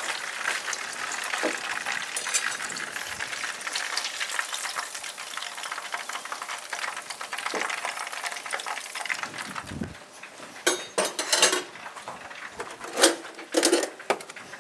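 Battered pollock fillet sizzling and crackling in hot frying fat. About ten seconds in the sizzle drops away and a few sharp knocks and clatters of dishes follow.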